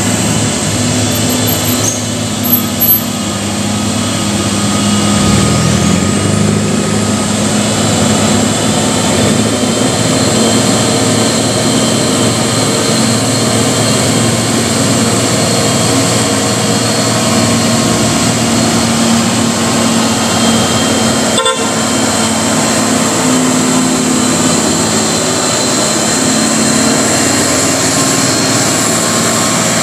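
Heavy diesel truck engines working hard up a steep hairpin climb, a steady low drone throughout. Two short horn toots come about two and a half seconds in.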